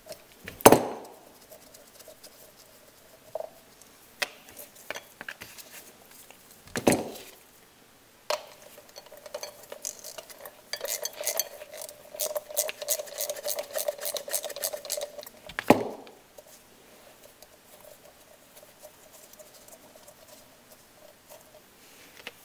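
Hand tools and metal parts clinking and knocking against a sheet-metal damper bracket as its nuts and carriage bolts are loosened: a few sharp knocks, the loudest about a second in, and a stretch of quick light ticking in the middle.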